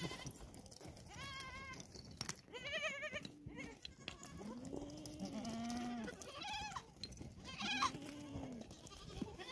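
Goats bleating: a series of separate quavering calls, some high and some deeper, a few seconds apart.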